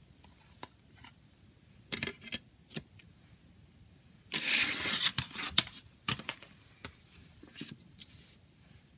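A CD jewel case and its packaging being handled: scattered plastic clicks and knocks, with a burst of rustling a little past halfway that lasts under two seconds.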